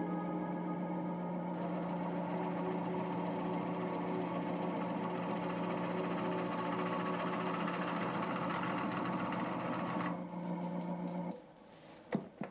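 Wood lathe running with a steady motor hum while the 2 mm cutter wheel of a Robert Sorby spiralling/texturing tool is held against the spinning wood, adding a rough rasping noise from about a second and a half in until about ten seconds. The hum stops shortly after, and a sharp click follows near the end.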